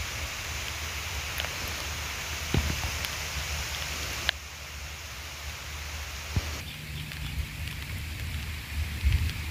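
Rain falling steadily, an even hiss dotted with small drop ticks. About four seconds in the sound drops abruptly and turns duller, and a low steady hum joins it about two-thirds of the way through.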